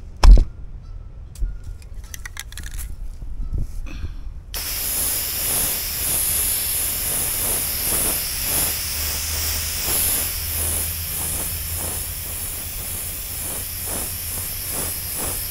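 Aerosol spray can of Rust-Oleum black lacquer hissing steadily as paint is sprayed onto a planter, starting about four and a half seconds in. Before that there is a loud thump and a few light clicks.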